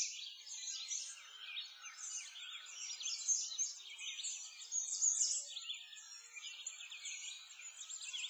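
Dense chorus of small songbirds, many overlapping high chirps and twittering calls with no pause.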